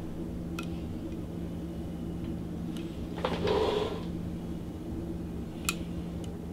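Quiet handling noises in a small room over a steady low hum: a few faint clicks, and a short rustle a little over three seconds in.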